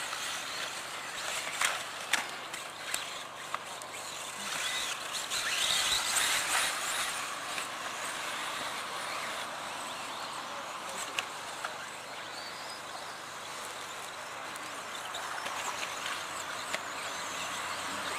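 Electric 1/10-scale 4WD RC buggies racing on a dirt track: a high, rising and falling whine of brushless motors over tyre and gravel noise. A pair of sharp knocks about two seconds in and another pair around eleven seconds in.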